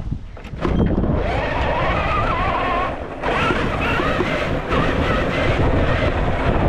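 Electric motor and gear drivetrain of a Traxxas TRX-4 1/10 scale RC crawler whining, its pitch wavering with the throttle. It cuts out briefly about three seconds in, then resumes.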